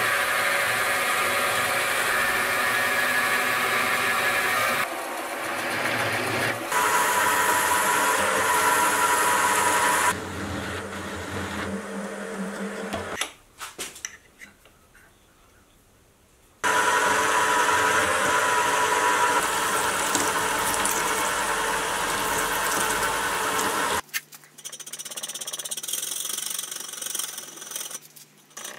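Benchtop milling machine running with an end mill cutting into steel, steady and loud, easing off around a third of the way in and stopping for a few seconds about halfway before cutting again. In the last few seconds, light clicks and knocks of the part being handled by hand in a vise.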